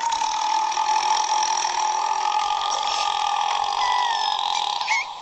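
One long, drawn-out human burp held at a steady pitch for about five seconds, cutting off near the end.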